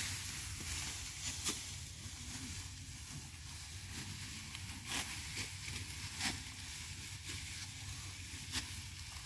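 Sickles cutting through ripe rice stalks by hand: a few short, crisp snaps at irregular intervals over a steady hiss and low rumble.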